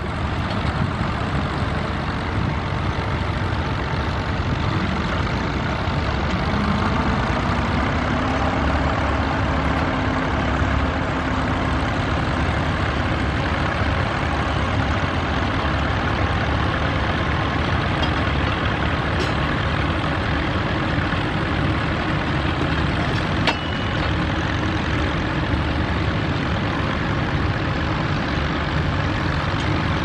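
Vintage tractor engines running steadily, the nearest one pulling a mounted plough through the field. A single sharp tick sounds about three-quarters of the way through.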